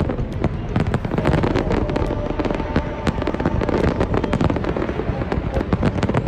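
Aerial fireworks display: a dense, continuous barrage of bangs and crackling, many reports overlapping every second.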